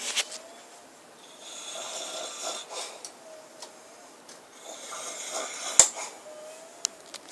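A man snoring heavily in his sleep: two long, rasping snores, each followed by a faint whistle on the breath. A sharp click comes near the end of the second snore.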